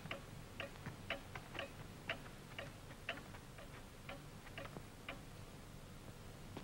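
Light, sharp ticking, about two to three ticks a second and not quite evenly spaced, over a faint steady low hum.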